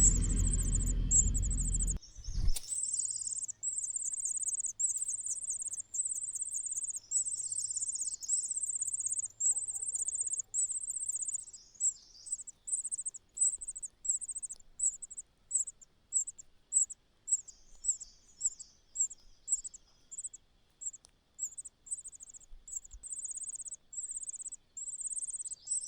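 High-pitched begging calls of nestlings: rows of thin, fast chirps, at first in runs of about a second, then from about twelve seconds in as short notes about one and a half a second. For the first two seconds a low rumble runs under them and stops suddenly.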